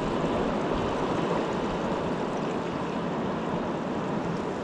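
Small waves lapping against shoreline rocks: a steady wash of water noise.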